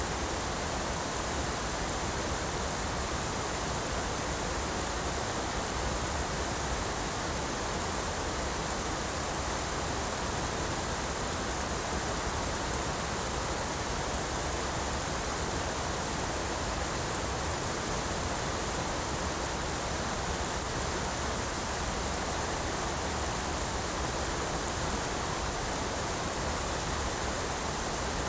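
Large river waterfall: a steady, unbroken rush of falling water.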